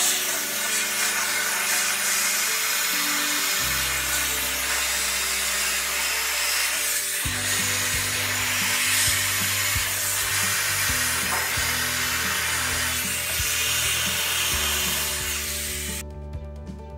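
Vaporetto steam cleaner jetting steam with a loud, steady hiss, over background music with a bass line. The hiss stops abruptly about a second before the end.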